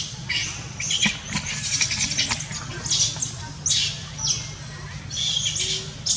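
Monkeys squealing: a run of short, shrill, high-pitched calls, about eight in six seconds, some sliding down in pitch, over a steady low hum.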